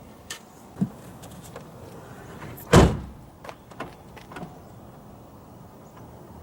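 Car door handle and latch being worked on a 2000 Kia Sephia: a few light clicks and clunks, with one loud thump nearly three seconds in.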